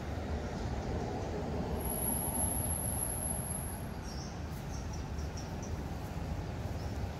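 Steady outdoor rumble and hiss. A thin, very high whine holds for about two seconds near the start, and a few faint short chirps come a little past the middle.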